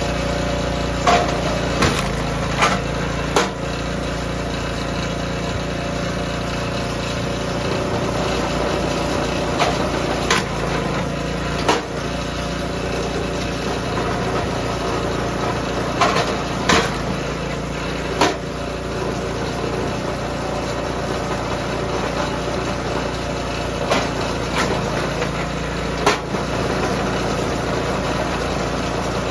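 DR K28 Pro log splitter's small gas engine running at a steady speed, with about a dozen sharp cracks and knocks as hardwood rounds are split and the pieces strike the steel table. The knocks come in clusters near the start, around the middle, and again later on.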